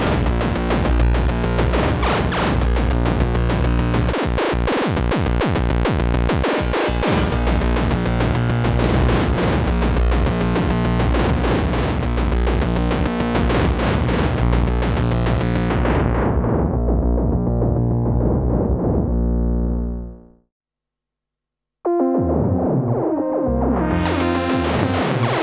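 Erica Synths Perkons Voice eurorack drum modules playing dense, pitched electronic percussion. About three-quarters of the way through, the filter sweeps the top end down until the sound cuts out. After a short silence a new pattern starts muffled and opens back up.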